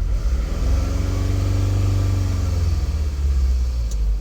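2008 Scion tC's 2.4-litre four-cylinder engine running really rough, revved once and settling back to idle over about three seconds: a misfire that the code reader puts on cylinder 2.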